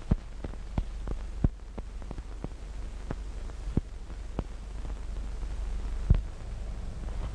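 Background noise of an old optical film soundtrack: a steady low hum with irregular clicks and pops, one or two a second, and a louder pop about six seconds in.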